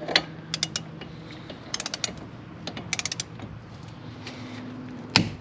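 A torque wrench ratcheting a brake caliper bolt tight in a few short bursts of rapid clicks, then a sharp loud click near the end as the wrench reaches its set 63 foot-pounds.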